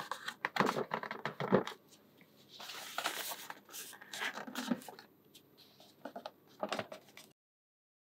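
A roof panel of small magnetic balls on a white backing being handled and set onto a magnetic-ball model house: irregular scraping and scattered small clicks as the panel rubs and seats against the balls of the walls.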